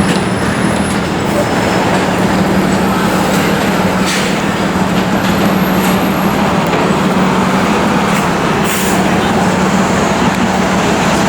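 Steady city street traffic noise with a constant low engine hum from a large vehicle running close by.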